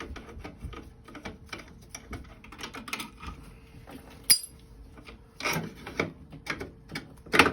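Metal-on-metal clicks and scraping of a 7/16 wrench working loose the nozzle assembly of a Beckett oil burner, with a sharp click about four seconds in and louder scrapes near the end.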